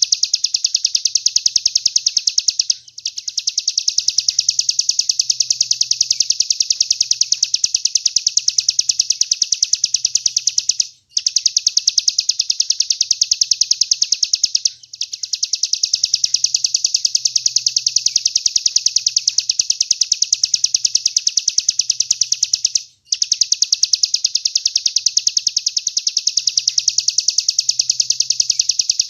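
A songbird's rapid chattering trill: a very fast run of evenly repeated high notes that keeps going, broken by a few short pauses. It is a recorded song phrase played as masteran, a tutor song for training songbirds.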